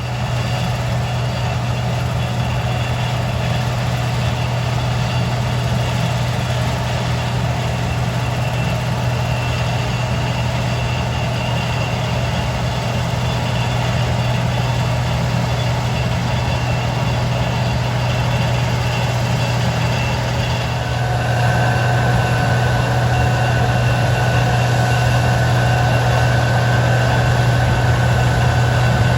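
A heavy engine running steadily with a low, even hum. About 21 s in, a steady high-pitched whine joins and the sound gets a little louder, as if a drive or machinery were engaged.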